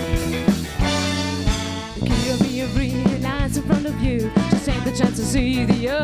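Live band with drum kit, electric guitar and a horn section of saxophone, trombone and trumpet playing an upbeat, ska-like tune. About a second in, the drums drop out under a held chord; a second later the full band comes back in with a wavering lead melody over it.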